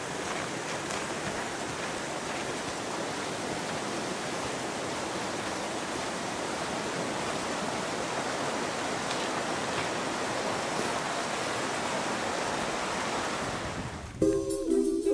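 Steady outdoor rushing noise, even and unchanging. Near the end it gives way to music with a sung melody.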